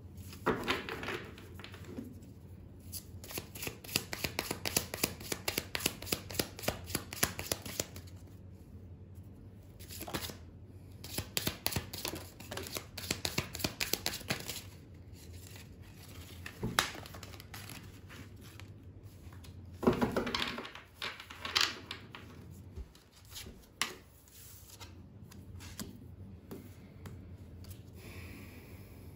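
A deck of oracle cards being shuffled by hand: two long runs of quick, rapid card-edge flicks. Later a few louder taps and slides as cards are laid down on a tabletop.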